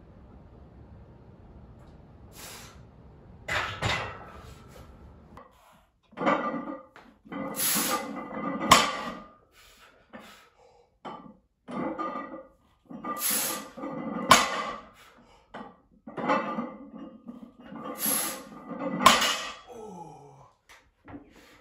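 Barbell deadlift for three reps. Each rep brings a hard, strained breath, then the loaded plates knock down on the floor, about every five seconds.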